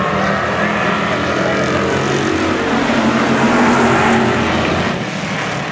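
A pack of dirt-track stock car engines running at racing speed around the oval. The sound grows loudest about four seconds in as the cars pass close by, then eases off.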